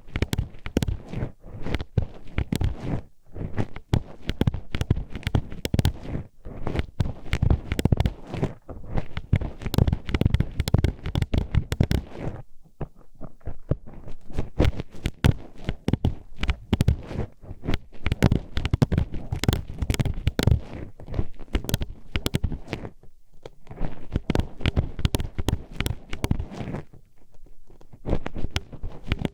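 Metal hairpin poked and scraped inside the ear of an ASMR microphone: rapid, dense clicking and clacking, with a short pause about twelve seconds in and brief gaps near the end.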